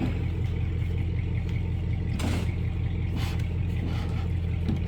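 A steady low motor hum, like an engine idling, with two brief swishing noises a little past the middle.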